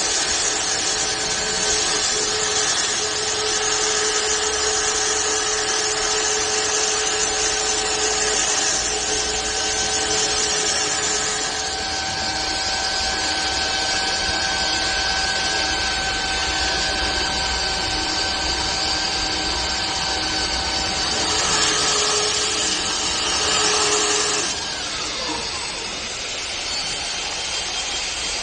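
Multi-head CNC wood lathe running, with several steady motor whines over a dense hiss of the tool working the wood. The mix of tones shifts twice, and it runs a little quieter near the end.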